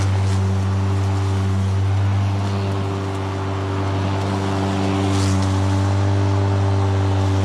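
Stiga Twinclip 950e 48-volt battery lawnmower running steadily under load as it cuts very tall grass, a constant electric motor and blade hum, with a brief hiss about five seconds in.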